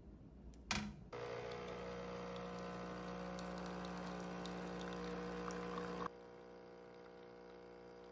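Capsule coffee machine brewing: its pump runs with a steady hum as coffee pours into a mug. The hum starts about a second in and drops to a quieter level about six seconds in.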